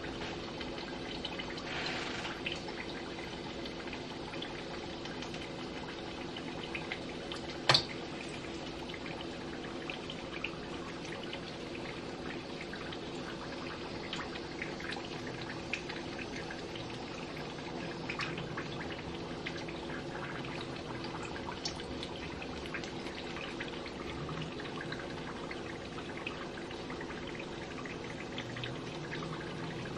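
Egg rolls deep-frying in hot vegetable oil: a steady sizzle with scattered small crackles as the wrappers brown. One sharp click about eight seconds in.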